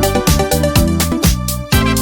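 Background music with a steady dance beat, about three beats a second.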